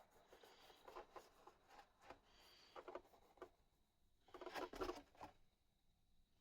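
Faint, irregular scratchy rubbing strokes from hand work on a surface, the loudest a burst of about a second some four and a half seconds in.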